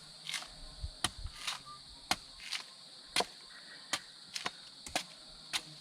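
A machete chopping open a fresh green coconut: a quick series of sharp, irregular chops about twice a second. Crickets chirr steadily in the background.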